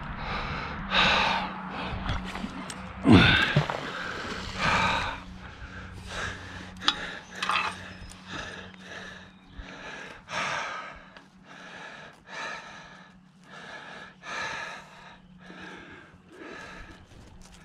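A man breathing heavily and audibly from the exertion of hauling a magnet-fishing rope up by hand, a breath roughly every second, louder at first and growing fainter.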